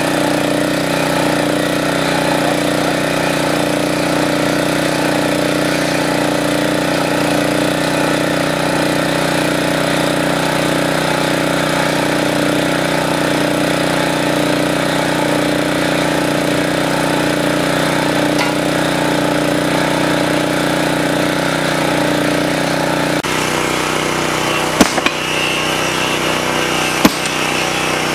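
A small engine running steadily. About 23 seconds in its sound changes abruptly, and after that come a few sharp knocks.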